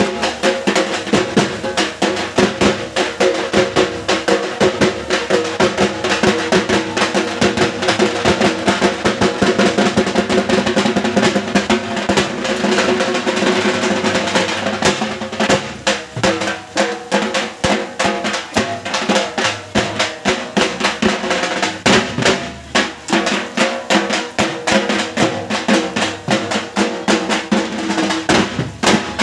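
Several large barrel drums beaten fast and continuously with sticks in a loud, dense drum roll accompanying a ritual dance. The beating thins out a little about halfway through, then carries on.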